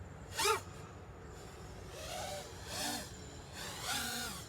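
Racing FPV quadcopter's brushless motors, on a 4-cell battery, whining in short surges whose pitch rises and falls, about three times, as the throttle is punched up and back.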